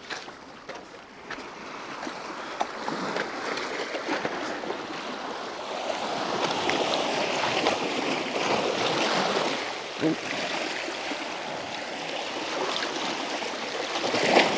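Sea swell washing and splashing over rocks, surging louder from about six seconds in and easing after about ten, with a couple of small knocks.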